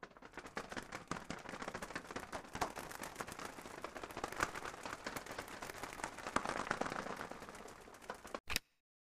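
Animated logo-intro sound effect: a dense, crackling flutter that swells and cuts off sharply near the end, then one short bright hit.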